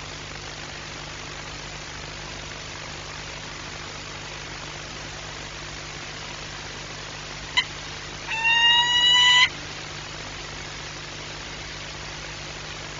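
Peregrine falcon calling once about eight seconds in: a single drawn-out wail of about a second, slightly rising in pitch, just after a brief sharp blip. A steady hum runs underneath.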